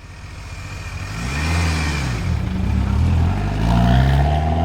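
Mitsubishi Lancer Evo VI's turbocharged 2.0-litre 4G63 four-cylinder engine, fitted with an anti-lag system, revving: the pitch climbs and drops several times. The sound fades in over the first second.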